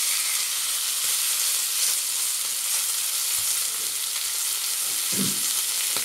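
Streaky bacon rashers sizzling steadily as they fry in a frying pan.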